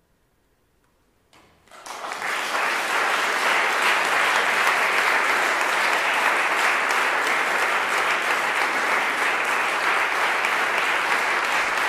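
Near silence, then audience applause breaks out about a second and a half in: a few first claps swell within a second into steady clapping from a full hall.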